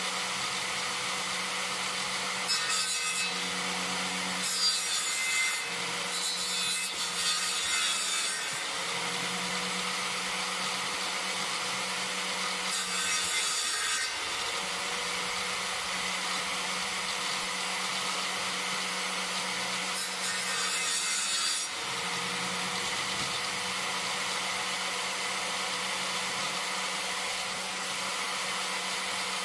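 Bench-mounted circular power saw running steadily and ripping a birch pole lengthwise, with louder bouts of cutting as the wood is pushed through the blade: a long one early on, then two shorter ones. The motor's pitch dips briefly under load at the end of some of these cuts.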